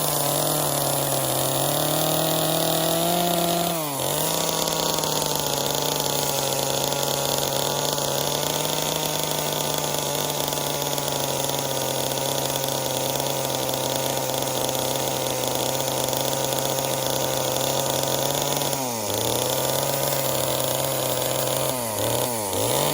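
Chainsaw held at high revs while carving, its engine speed dipping and picking back up about four seconds in and twice near the end.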